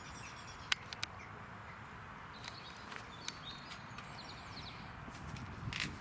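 Small birds chirping faintly over a quiet outdoor background, with two sharp clicks less than half a second apart about a second in and another short click near the end.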